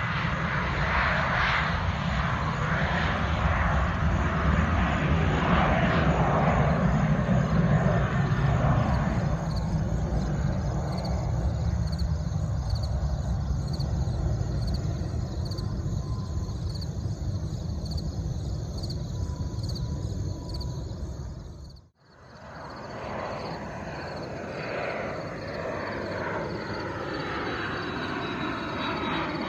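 Jet airliner engines rumbling as the planes fly past. Later, a jet passes low overhead and its engine whine slides down in pitch as it goes by.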